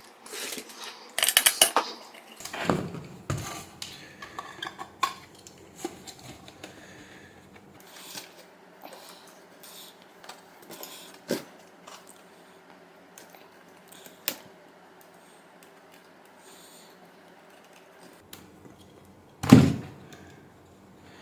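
Clicks, scrapes and light metallic clatter of an electric kettle's base connector being taken apart by hand. The clatter is busy for the first few seconds, then thins to scattered ticks, with one louder knock near the end.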